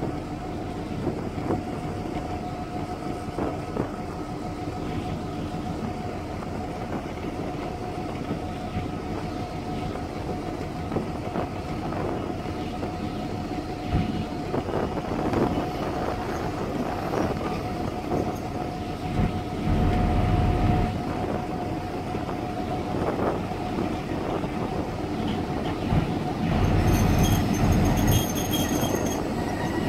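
PKP EP07 electric locomotive running light at low speed, a steady whine with wheel rumble on the rails, growing louder near the end as it comes close.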